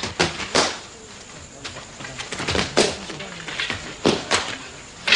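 Rattan fighting sticks clacking against each other in fast Eskrima sparring: a string of sharp, irregular strikes, some in quick pairs.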